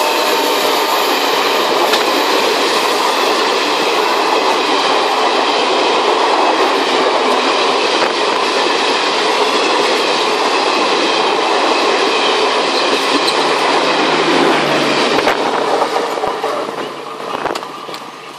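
Garib Rath express coaches passing at speed on the adjacent track at close range: a loud, steady noise of wheels on rail with faint clickety-clack. It fades after the last coach goes by, about sixteen seconds in.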